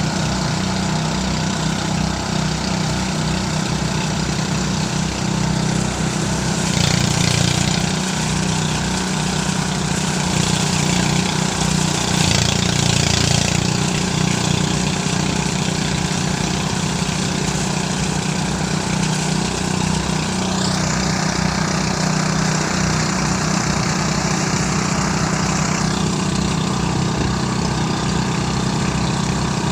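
Motorised rice thresher running steadily with an engine hum. There are louder stretches of rushing, hissing noise around a quarter of the way in and again near the middle, and a high whine that rises about two-thirds of the way through, holds for several seconds, then stops.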